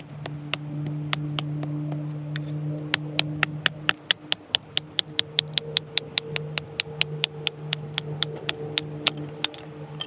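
Sharp crackling pops from cooking over a wood fire, growing denser and louder through the middle, over a steady low hum.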